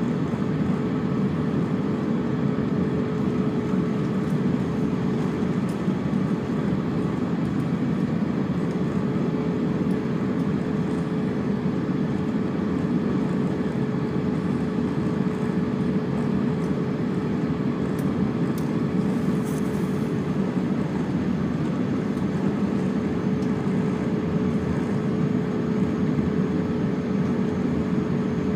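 Cabin noise inside an Airbus A350-900 on the ground before takeoff: a steady low hum from the engines and air systems, with one steady mid-pitched tone over it.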